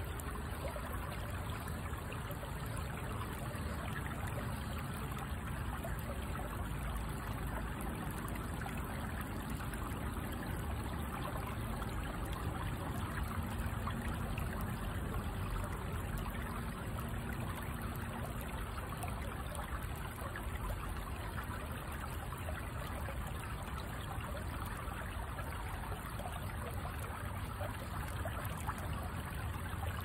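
A stream running over rocks: a steady, even trickle and rush of water.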